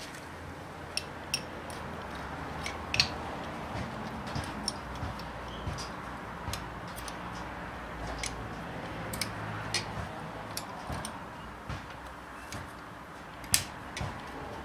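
Scattered sharp metallic clicks and taps, irregular and a second or so apart, the loudest about three seconds in and again near the end, over a low steady hum: hand tools and parts being handled during work on a Holden 308 V8 engine.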